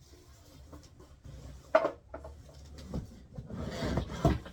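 Parts of an animatronic prop being handled: a single sharp knock about two seconds in as a piece is set down or bumped, then rustling and shuffling near the end as the next piece is picked up.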